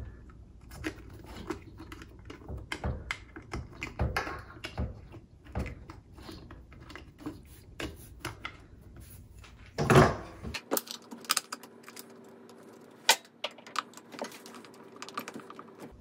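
Scattered clicks, taps and knocks of wires and wire nuts being pushed into a garbage disposal's wiring compartment and the metal access cover being fitted over it, with one louder knock about ten seconds in.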